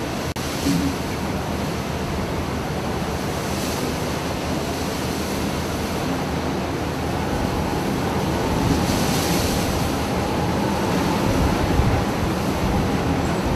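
Ship under way: a steady rush of water with wind on the microphone and a low engine hum underneath.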